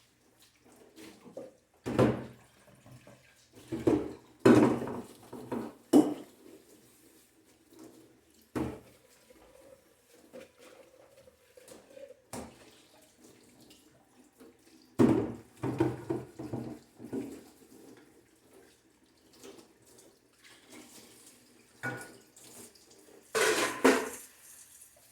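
Dishes and utensils being washed at a kitchen sink: water from the tap in short runs, with clattering and splashing in irregular bursts.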